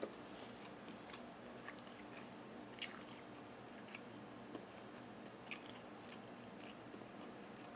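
A person chewing food with the mouth closed, making scattered soft clicking mouth noises over a faint steady hum.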